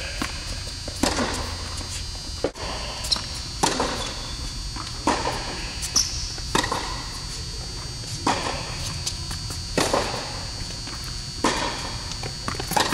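Tennis rally on an indoor court: sharp racket strikes and ball bounces about every second and a half, each echoing briefly in the hall, over a steady high-pitched whine.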